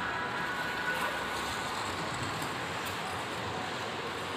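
Steady hiss and rumble of ice skates gliding and scraping over rink ice, amid the general noise of a busy indoor skating rink.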